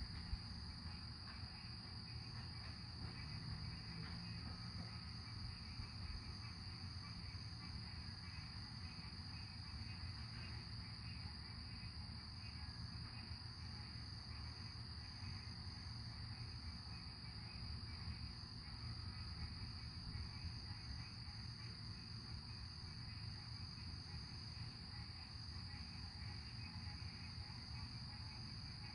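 Steady chorus of night insects shrilling in a constant high drone, over a low, steady background rumble.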